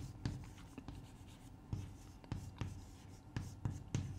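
Chalk writing on a chalkboard: a string of sharp taps and short scratches, irregularly spaced, as letters are written.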